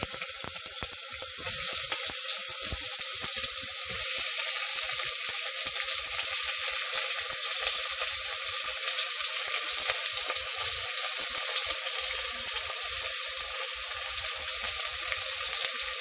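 Chopped onions sizzling steadily in hot oil and ghee with whole spices in a pressure cooker, a dense hiss with fine crackling, as the onions start to sauté toward brown.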